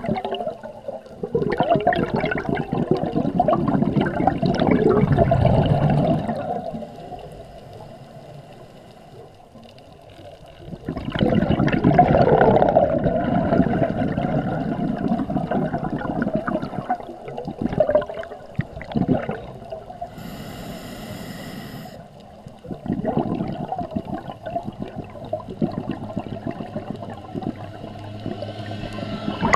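Scuba diver's exhaled bubbles rushing from the regulator, heard underwater, in three surges of several seconds each about ten seconds apart. A brief steady hiss comes about two-thirds of the way through, between the second and third surges.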